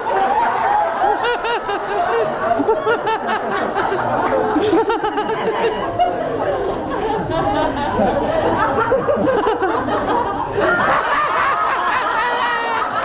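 A room full of people laughing and chuckling, many voices overlapping, with a fresh burst of laughter about ten seconds in.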